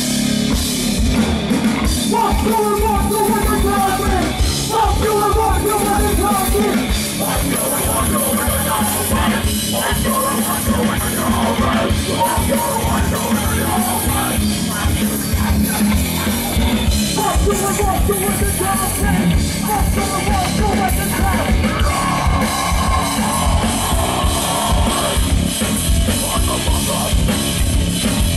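Live heavy metal band playing loud: drum kit, distorted electric guitar and bass, with yelled vocals.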